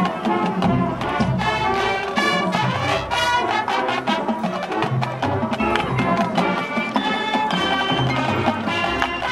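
High school marching band playing its field show: brass chords over drums and front-ensemble percussion, with many sharp percussion hits.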